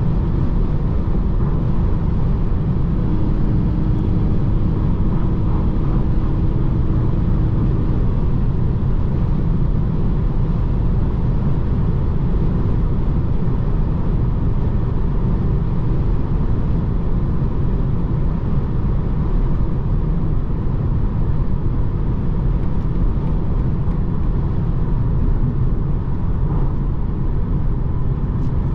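Steady driving noise of a BMW 220d xDrive F44 Gran Coupé on the road, a constant rumble heavy in the low end, with a faint hum joining for a few seconds about three seconds in.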